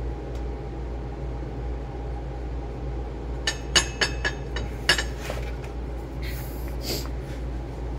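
Light metallic clicks and clinks as a steel plate is handled and shifted on a steel welding table, clustered about halfway through with a couple more near the end, over a steady low hum.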